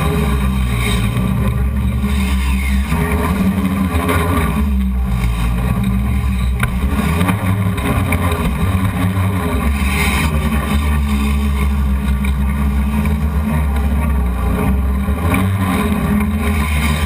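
Home-built hexacopter's six BP Hobbies brushless motors and 12x3.8 propellers droning steadily as heard from the onboard camera, the pitch wavering a little as the motors speed up and slow down.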